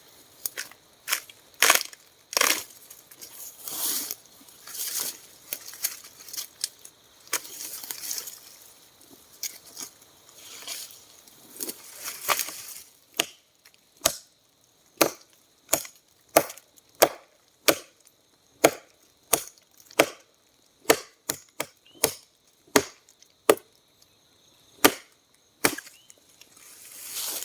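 Repeated sharp blows on wood. Irregular knocks with rustling in the first half, then a steady run of single strikes, about one and a half a second, from about halfway.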